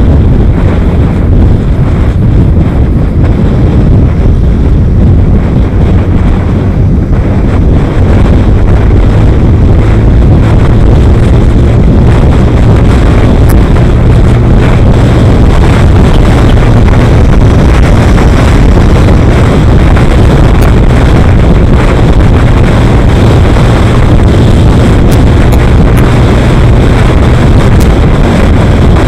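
Heavy wind buffeting on the microphone over the steady engine and road rumble of a vehicle travelling at highway speed. A deeper steady drone firms up about eight seconds in.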